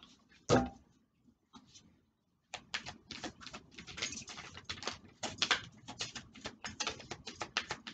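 A deck of oracle cards being shuffled by hand: a single tap about half a second in, then from about two and a half seconds a fast, uneven run of card clicks and flicks.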